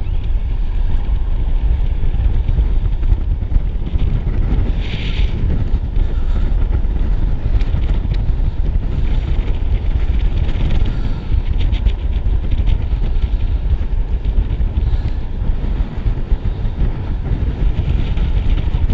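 Wind buffeting an action camera's microphone high up on a crane mast: a loud, steady low rumble, with a few faint clicks about halfway through.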